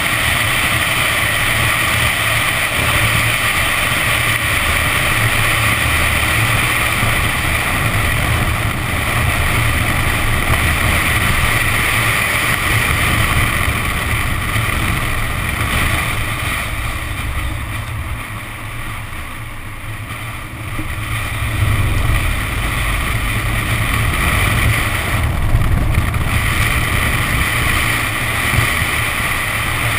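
Nissan 370Z's V6 engine running as the car is driven fast on a soaked track, heard from a camera mounted on the outside of the car. It sits under steady wind rush on the microphone and the hiss of water spray from the tyres. The sound eases off for a few seconds a little past the middle, then picks up again.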